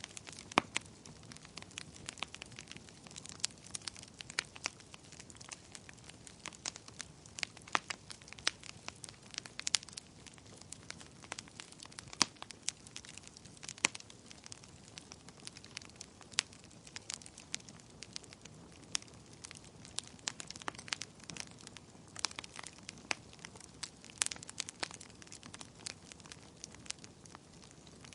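Wood fire burning in a fireplace: a steady low hiss with frequent irregular sharp crackles and pops from the burning logs.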